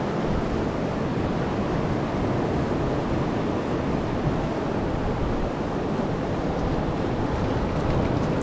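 Sea waves washing steadily on the shore at a strong high tide, an even rushing noise with no breaks.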